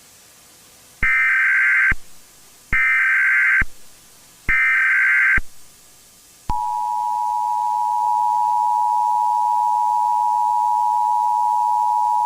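Emergency Alert System tones marking the start of an EAS activation: three bursts of SAME header data tones, each about a second long with short gaps between them. Then the steady two-tone EAS attention signal comes on and holds.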